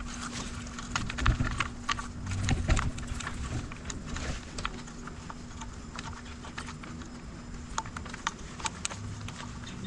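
Electrical wires and plastic connectors being handled and pushed into an e-bike's down tube, giving scattered light clicks and rattles. A few low thumps come in the first three seconds. A faint steady hum runs underneath.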